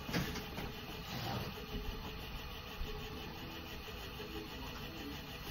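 Small electric spinning wheel running at a steady speed, its motor and spinning flyer making a constant whir as wool yarn winds onto the bobbin. A few light knocks come in the first couple of seconds.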